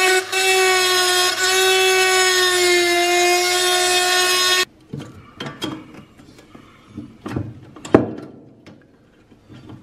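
A handheld rotary tool running at high speed, a steady whine that dips slightly as its bit cuts at the rusted wire guide of an old oil lamp, cutting off suddenly about halfway through. After it come light metallic clicks and scrapes of pliers working the wire, with one sharp click near the end.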